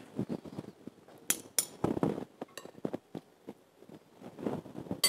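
Metal utensils clinking and tapping against a glass mixing bowl and a ceramic serving dish as tuna is scooped across, a few sharp clinks among softer knocks.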